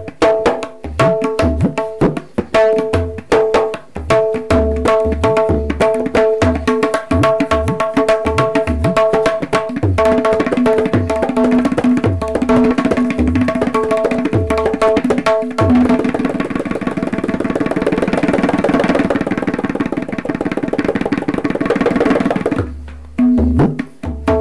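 A pair of tabla played by hand. The small wooden treble drum with its leather head rings at a clear pitch on each finger stroke, and the larger bass drum adds deep low strokes. About two-thirds through, the playing speeds up into a dense, fast run of strokes, and a few low bass strokes close it near the end.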